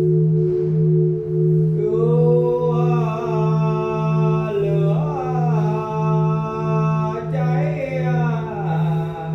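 A deep, sustained bell tone that wavers in a slow pulse about one and a half times a second, with steady higher ringing tones above it. From about two seconds in, a voice chants a long, sliding melody over the bell tone, ending near the close.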